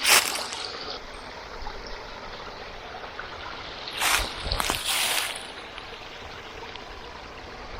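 Stream water running steadily, with short louder rustling noises at the start and again about four to five seconds in.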